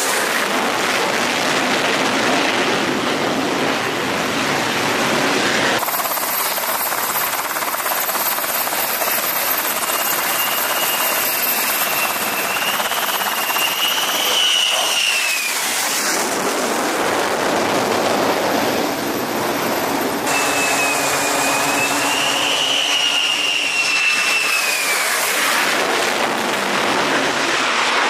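F-35C Lightning II jet engines, Pratt & Whitney F135 turbofans, running on an aircraft carrier flight deck: a loud, steady rush of jet noise with a high turbine whine that rises and falls several times. The sound changes abruptly twice, at about six seconds and at about twenty seconds.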